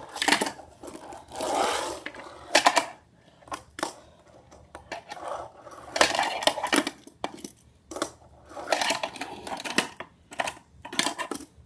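A Tech Deck fingerboard clacking and rolling on a toy ramp and ledges: sharp clicks of the board popping and landing, broken by short stretches of wheels rolling or the deck sliding.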